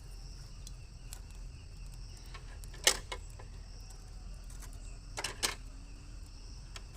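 Crickets chirring steadily in the background, with a sharp knock about three seconds in and two more close together a little after five seconds.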